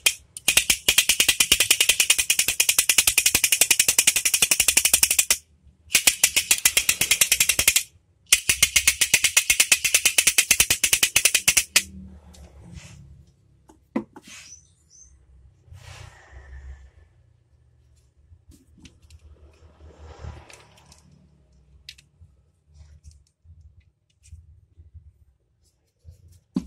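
Otok pistol toy being whirled so the ball on its wire strikes the body over and over in a fast clatter of many clacks a second. It comes in three long runs, broken by short pauses at about 5 and 8 seconds, and stops about 12 seconds in, leaving only faint handling knocks.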